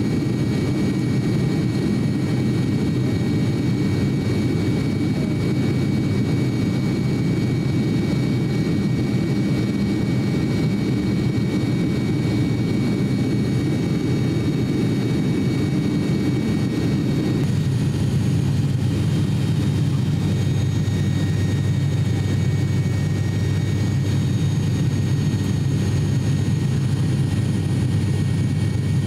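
Cabin drone of an ATR 42-600's Pratt & Whitney PW127 turboprop engines and propellers in flight: a steady low hum with several thin steady tones above it. The mix of tones shifts about two-thirds of the way through, after which the hum stays steady.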